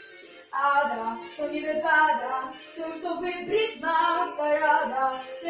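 A young girl singing a Polish song solo, her voice coming back in about half a second in after a short pause for breath and carrying on in sung phrases.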